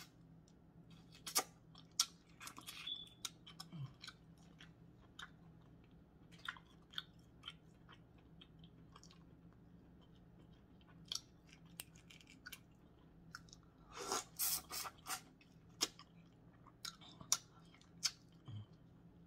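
Close-up eating sounds of boiled crawfish: chewing and mouth smacks, with sharp clicks and crackles of the shells being cracked and peeled by hand. There is a denser run of them about 14 seconds in.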